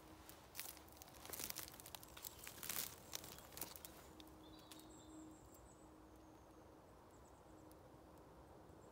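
Footsteps crunching and crackling on dry leaf litter and twigs, with coat fabric rustling, as a person steps up to a tree and kneels. The crackles stop about four seconds in, leaving quiet woodland air.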